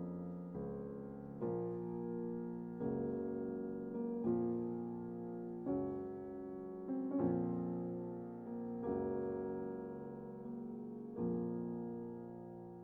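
Background music: slow, soft piano chords struck about every second and a half, each ringing out and fading.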